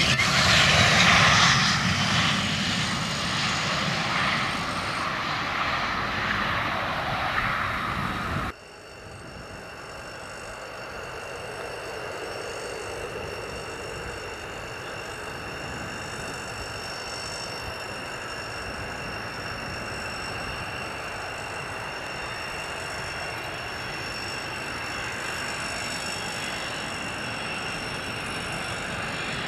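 F-16 fighter jet noise, loud at first and fading slowly as the jet moves away, cut off abruptly about eight seconds in. It is followed by the quieter, steadier whine of an F-16 on approach with gear down, with steady high tones, growing slowly louder as it nears.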